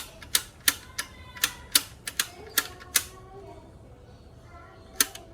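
Intake manifold flaps of a Mercedes M271 engine clicking as they are worked open and shut. There are about three sharp clicks a second for three seconds, then a single click near the end. The flaps are moving freely, with nothing stuck.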